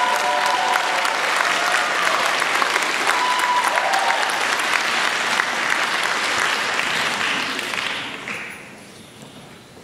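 Audience applauding steadily, dying away about eight seconds in.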